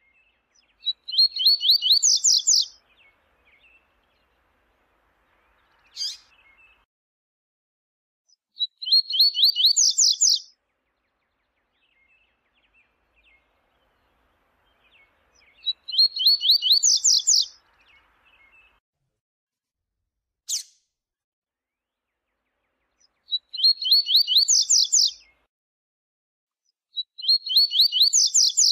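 Double-collared seedeater (coleiro) singing: five phrases of rapid repeated high notes, each about a second and a half long, with a short sharp single note twice in the gaps between them.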